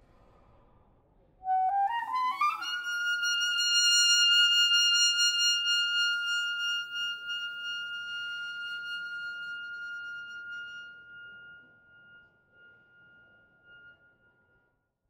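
Solo clarinet: about a second and a half in, a quick rising run leads into one long high held note, which swells loud and then slowly fades away to nothing.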